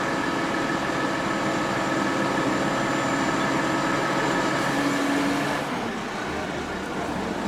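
An engine running steadily with a constant hum; the higher part of the sound drops away about six seconds in.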